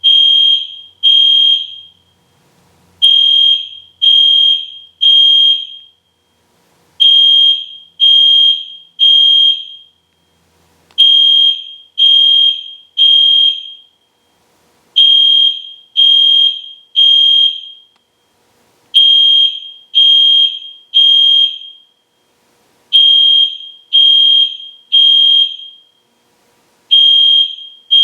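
EST Genesis fire alarm horn sounding at full volume: a loud, high, steady tone in groups of three short blasts, each group repeating about every four seconds. This is the temporal-3 pattern of a building evacuation signal.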